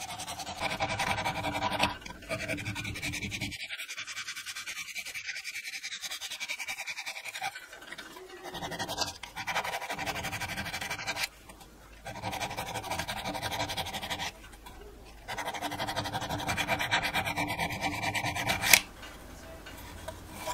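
Needle file rasping on a small metal drill gear, filing its cross slots in quick back-and-forth strokes. The strokes stop briefly twice, and a sharp tap comes near the end.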